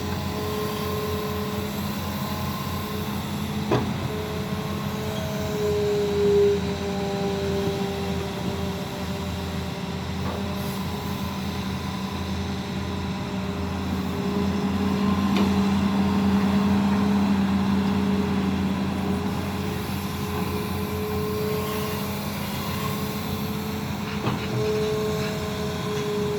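Hitachi Zaxis 200 hydraulic excavator's diesel engine running steadily while digging, with whining tones that rise and fall in pitch and a swell in loudness about two-thirds of the way through. There are a few sharp knocks along the way.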